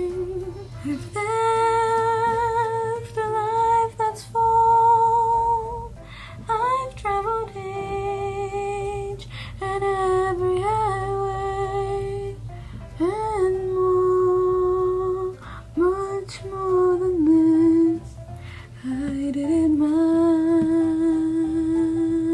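A woman singing to herself, alone, holding long notes that waver in pitch, with short breaks between phrases; she herself says she can't sing.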